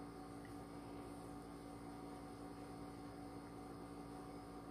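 Faint steady hum over a low hiss: room tone.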